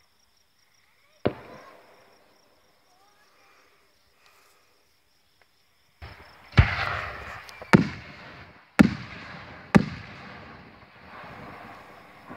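Aerial firework shells bursting: one sharp bang about a second in, then four loud booms in quick succession from about six seconds, each followed by a long rolling echo.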